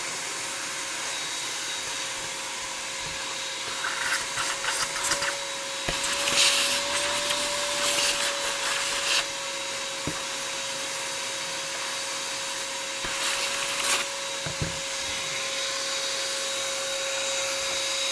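Vacuum cleaner running with a steady motor whine. It crackles and rattles from about four to nine seconds in and again briefly near fourteen seconds as it sucks up debris.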